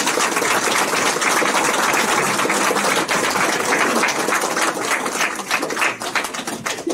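Room audience applauding, dense rapid clapping that thins out and dies down near the end.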